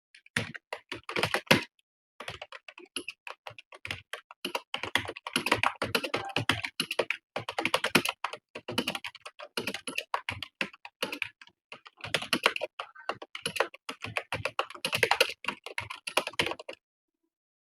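Fast touch-typing on a computer keyboard: rapid runs of key clicks with short hesitations, stopping about a second before the end.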